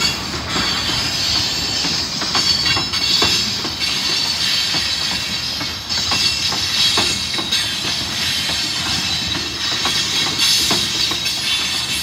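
Freight train's autorack and tank cars rolling past close by: the steel wheels click irregularly over the rail joints over a steady rumble, with a high, thin wheel-on-rail whine.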